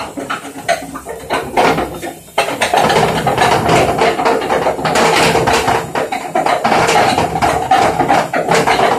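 Indesit WISL 103 washing machine drum knocking and clattering as it turns. About two seconds in it turns louder, with a steady rumble under the repeated knocks. These are the symptoms of a failing drum bearing.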